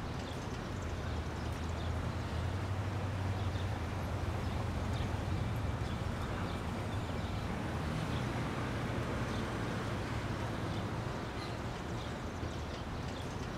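Steady outdoor background noise: a low, even rumble with faint, brief high chirps scattered through it.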